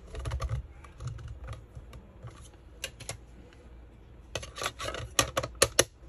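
White plastic router casing being handled and fitted back together: soft rubbing at first, then scattered sharp plastic clicks, with a quick run of louder clicks near the end.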